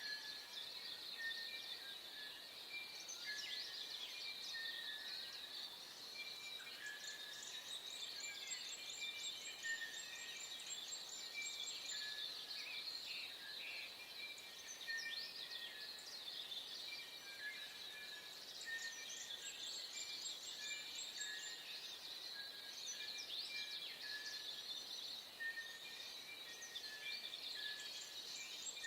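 Dawn chorus of many birds chirping and whistling at once. Short whistled notes repeat throughout, and a few runs of rapid high chirps come about a third of the way in, past halfway, and again near the end.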